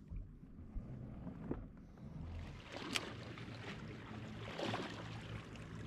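Faint water and wind noise around a fishing kayak, with a couple of light knocks about one and a half and three seconds in.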